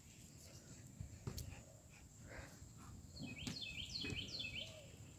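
An animal calling faintly: a quick run of about six high, down-slurred notes over a second and a half, a little past the middle.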